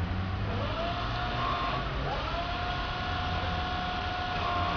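Caterpillar electric forklift's motor whining as it drives. The whine rises in pitch about half a second in and holds steady, drops and climbs again about two seconds in, and falls away near the end, over a low steady hum.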